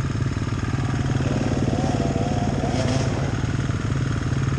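KTM EXC 500 single-cylinder four-stroke enduro engine idling steadily with an even, rapid beat. For a couple of seconds in the middle, a wavering higher sound rises over it.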